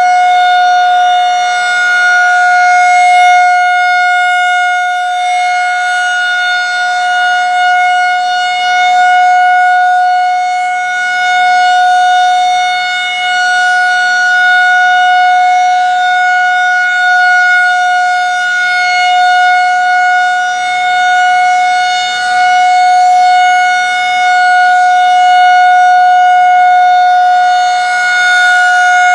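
Federal Signal 2001-130 electromechanical tornado siren sounding a steady single tone at full speed during a test. Its loudness swells and fades every few seconds as the rotating siren head sweeps past.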